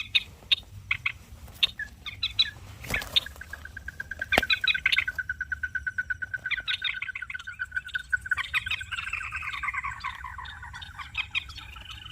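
Night calls of birds and frogs: short sharp clicking calls, then a long rapid trill held on one pitch from about three seconds in, giving way to lower falling trills near the end. Two sharp knocks cut in around three and four seconds.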